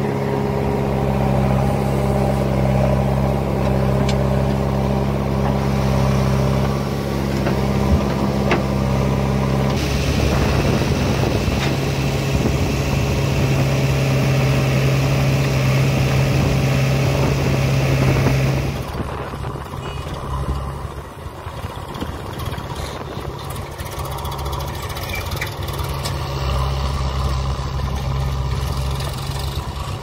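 Diesel engine of a JCB backhoe loader running steadily as it digs soil with its bucket. The engine note changes abruptly about ten seconds in and again a little past the middle, where it drops somewhat in level.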